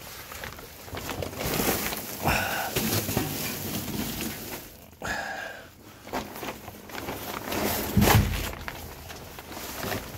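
A person crawling over plastic sheeting on a crawlspace floor: irregular rustling, crinkling and scuffing as the body and hands drag across it, with a heavy thump about eight seconds in.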